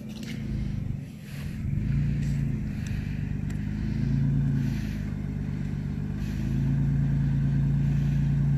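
Titan-swapped Nissan Xterra's 5.6-litre V8 working at low revs as the truck crawls up a rutted trail. The throttle swells louder about two seconds in and again around four seconds, then holds louder near the end.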